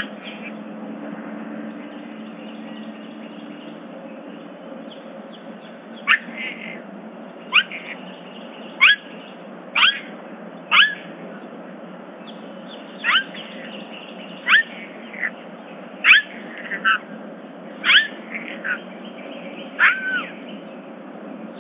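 A bird singing a series of short whistled notes, each sliding steeply down in pitch, roughly one a second, starting about six seconds in. A steady background hiss and a faint low hum lie beneath.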